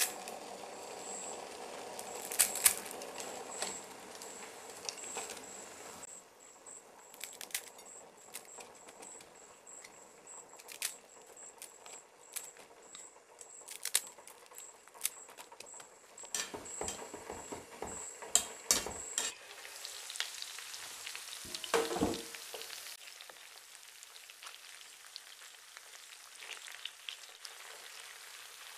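Dry blocks of Maggi instant noodles cracking as they are broken by hand over a pot of boiling water, with sharp snaps over a faint bubbling. About two-thirds of the way through, chicken pieces begin to sizzle as they fry in oil in a pan, with one clatter of a utensil or lid just after.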